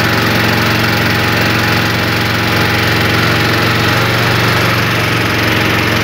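Small boat engine running steadily, a constant even drone.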